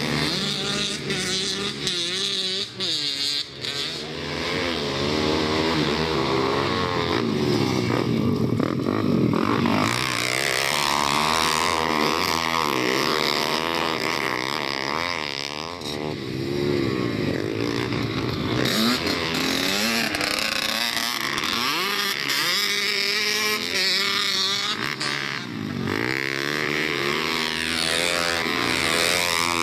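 Several pit bike engines racing on a dirt track, overlapping as they rev up and down repeatedly through the corners and over the jumps.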